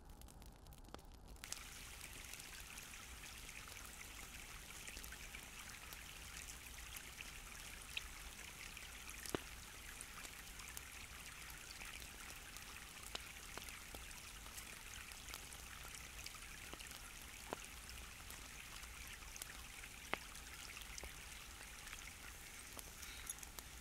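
Shallow stream running over rocks, a faint steady babble that comes in about a second and a half in, with a few small ticks scattered through it.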